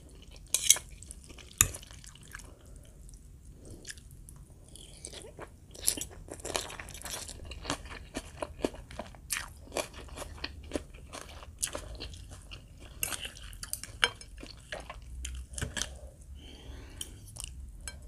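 Close-up eating sounds: chewing and crunching through mouthfuls of khanom jeen rice noodles in curry with raw bean sprouts and greens, with scattered sharp clicks of a metal fork and spoon against ceramic bowls.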